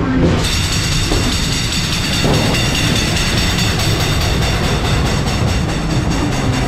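Funfair ghost train car running along its track with a steady rumble and rattle from its wheels. About half a second in, a brighter, high-pitched rattle joins as the car leaves the dark interior for the open balcony.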